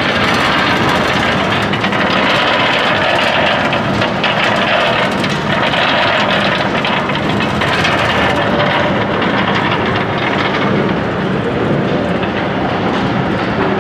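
Almond slivering machine running steadily and loudly, a dense mechanical clatter with the nuts rattling along its ribbed stainless-steel chute.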